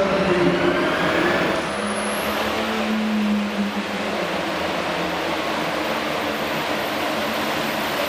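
Super farm class pulling tractor's turbocharged diesel engine running hard under load as it pulls the sled. A high whine rises about two seconds in and then holds steady over the engine noise.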